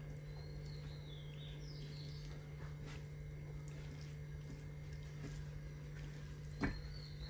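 Faint bird chirping, high notes sliding downward in two spells, over a steady low hum of room tone. A single soft knock sounds near the end.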